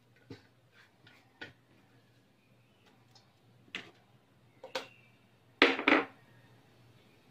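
Scattered short knocks and clinks of kitchenware being handled, the loudest a double clatter near the end, over a faint low steady hum.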